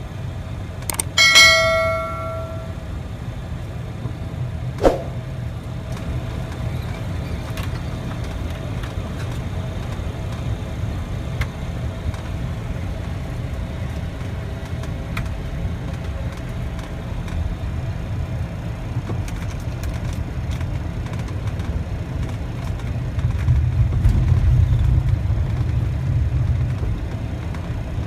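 Airliner interior noise: a steady low rumble of engines and airframe that swells for a few seconds near the end. About a second in, a single cabin chime rings and fades, and a sharp click comes a few seconds later.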